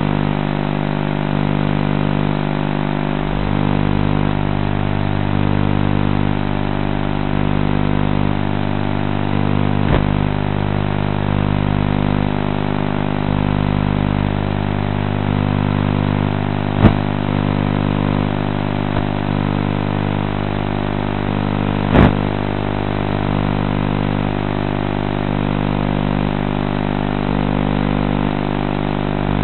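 Steady, unchanging hum of a 450-size radio-controlled helicopter's electric motor and rotors, heard through the model's onboard camera. Three sharp knocks break through, the loudest about halfway through.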